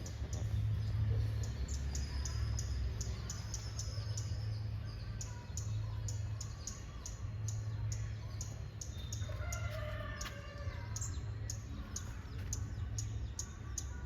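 Birds calling: quick, high, repeated ticking notes throughout, and one longer call with several pitches about nine to ten seconds in, over a steady low hum.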